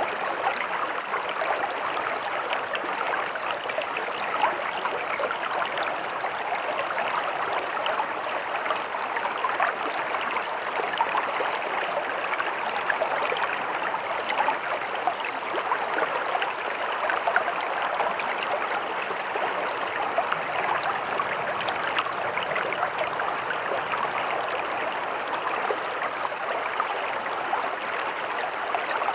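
Stream of running water flowing steadily, a constant rush with many small splashes and gurgles.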